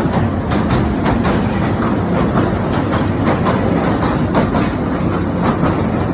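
Train crossing a railway bridge: a steady rumble with a quick, uneven clatter of wheels over the rail joints.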